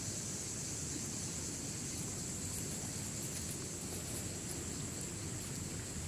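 Steady outdoor background of a shallow river running over stones, with a steady high hiss above it.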